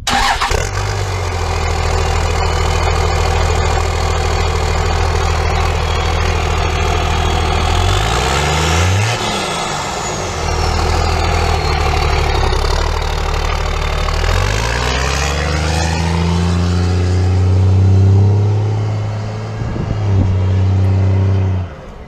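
A 2001 Dodge Ram 2500's 5.9-litre Cummins diesel, straight-piped through a 4-inch MBRP side-dump exhaust with no tip, starts up and idles, then is revved twice, briefly about eight seconds in and longer from about fourteen seconds, settling back to idle after each. A high turbo whistle, the turbo's silencer ring removed, falls away after the first rev.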